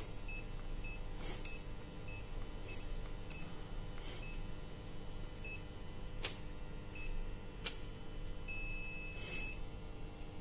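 HABOTEST HT122A pen-type multimeter's small buzzer giving short high beeps, roughly two a second at first and then more scattered, during a three-phase rotation sequence test. Scattered clicks come from the test leads and meter being handled. One longer beep of about a second sounds near the end.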